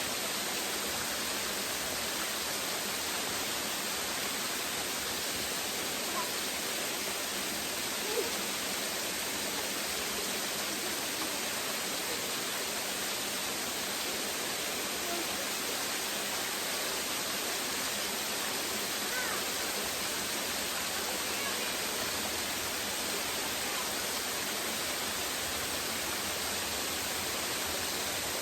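Steady rushing of the Station Cove Falls waterfall, an even hiss of falling water with one small click about eight seconds in.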